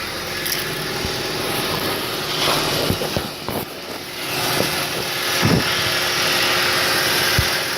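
1994 Honda Civic's four-cylinder engine idling steadily, freshly refilled with oil and running so it can be checked for leaks, with a few short knocks and clunks over it.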